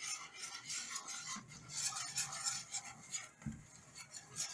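A whisk scraping and rubbing around a stainless steel skillet in irregular strokes, stirring seasoned flour into the hot fat to start a gravy. There is a soft knock about three and a half seconds in.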